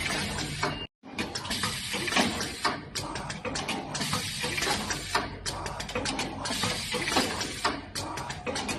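Sewing and cuff-cutting machinery running: a dense mechanical clatter of irregular clicks over a hiss, breaking off for a moment about a second in.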